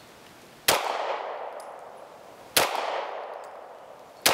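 Three slow, aimed 9mm shots from a Walther PDP F pistol, about two seconds apart, each a sharp crack followed by a fading echo; the third comes right at the end.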